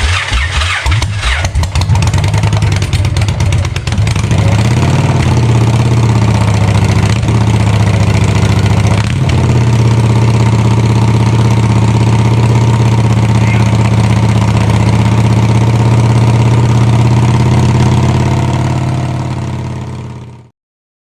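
1999 Victory V92C's fuel-injected V-twin engine starting and running unevenly for the first few seconds, then a brief rev and a steady idle. The sound fades out near the end.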